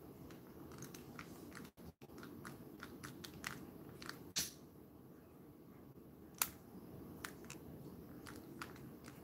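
Faint scattered clicks and rustles of fingers handling a cut fabric drawstring, with a sharper click about four seconds in and another about six seconds in.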